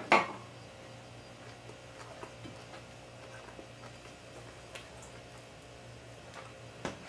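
Cutlery clicking and scraping faintly against a plate as the crisp breaded crust of a veal schnitzel is cut, in scattered single ticks. A short, louder sound comes right at the start.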